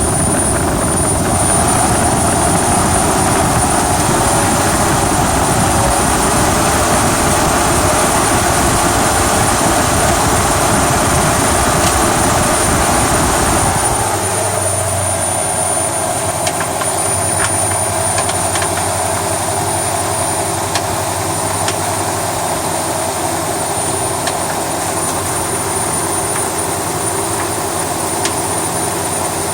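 1971 Chevy El Camino's 350 small-block V8 running: harder and rougher for about the first half, then settling to a steadier, slightly quieter idle with scattered light clicks. The owner is trying to track down an unidentified clanking noise from it.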